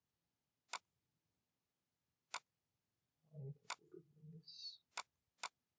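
Computer mouse button clicking, about five single sharp clicks a second or so apart, over a near-quiet room with a faint low murmur around the middle clicks.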